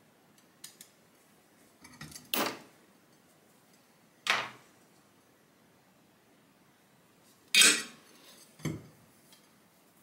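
Metal parts of a refrigerator compressor's piston pump clinking as they are handled and worked loose during disassembly: four sharp clinks a second or two apart, the loudest about three-quarters of the way in, with a few fainter ticks before them.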